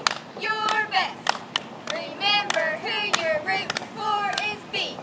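Two girls' voices shouting a cheerleading chant in unison, punctuated by sharp hand claps between the lines.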